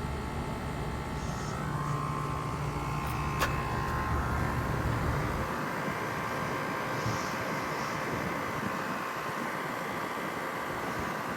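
Residential heat pump outdoor unit running, a steady hum of compressor and condenser fan. There is a single sharp click about three and a half seconds in, and the deep low rumble drops away about halfway through while the higher hum carries on.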